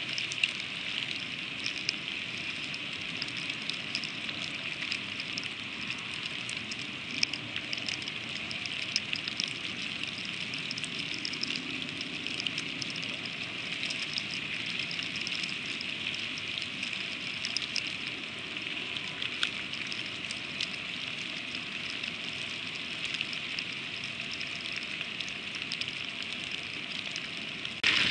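Freezing rain falling steadily on the eagle nest and camera: an even hiss dotted with many small ticks. The sound jumps louder suddenly near the end.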